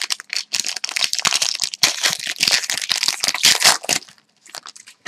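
Hockey card pack wrapper being torn open and crinkled by hand: a dense run of crackles that stops about four seconds in, followed by a few faint ticks.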